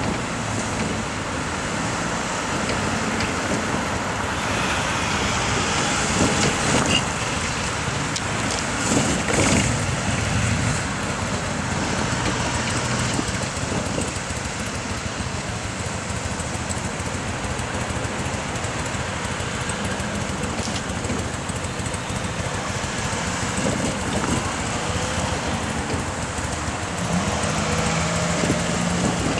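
Steady road-traffic noise, with vehicles passing and swelling a little now and then.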